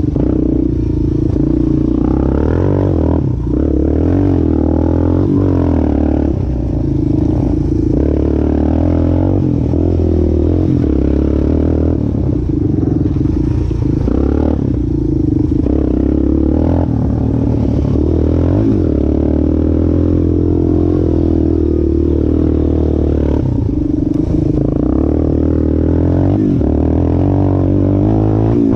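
Yamaha Warrior 350 quad's freshly rebuilt single-cylinder four-stroke engine running under load on its break-in ride, its pitch rising and falling as the throttle is worked.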